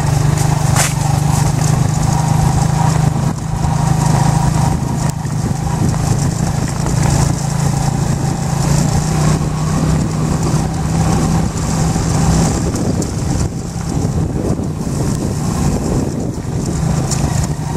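Motorcycle engine running steadily at an even low pitch while riding along, with a constant hiss of riding noise over it.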